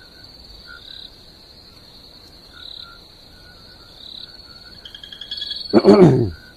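Night chorus of frogs and insects chirping steadily, with one loud falling-pitched call about six seconds in.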